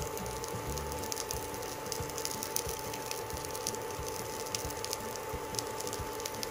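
Shredded cabbage frying in oil in a shallow pan: a steady soft sizzle with small crackles, over a steady thin whine from the induction cooktop.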